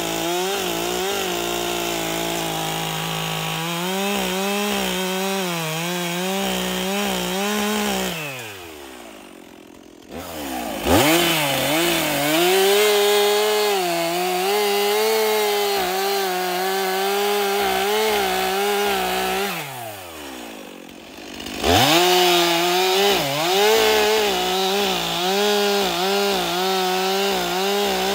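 Stihl MS 362 two-stroke chainsaw cutting through a log at full throttle, its engine pitch wavering and bogging under the load of the cut. Twice, about a third of the way in and again about two-thirds in, the throttle is let off and the engine winds down to a low idle, then revs straight back up into the cut.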